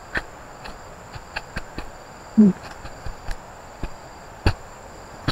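Steady high-pitched insect drone, with irregular sharp clicks and knocks scattered through it and one louder knock about four and a half seconds in.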